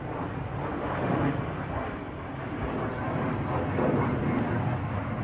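Twin-engine jet airliner flying overhead, a steady broad rumble of engine noise.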